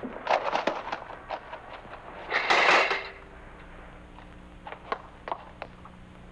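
A bicycle loaded with bundled newspapers tipping over onto the pavement: a clatter of knocks, then one loud crash about two and a half seconds in. A few light knocks follow near the end as the papers are picked up.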